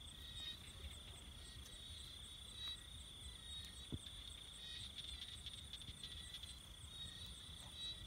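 Night insect chorus: crickets trilling in one unbroken high note, with a fainter, higher pulsing trill behind it.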